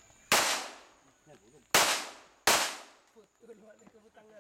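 Three pistol shots from a Para-Ordnance handgun, each ringing off with a short echo. One comes shortly after the start, and two more follow about three-quarters of a second apart.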